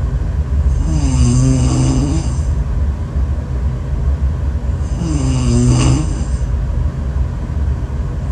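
Snoring in a steady rhythm: two long snores about four seconds apart, each with a pitched, voice-like tone that dips and rises again, over a constant low rumble.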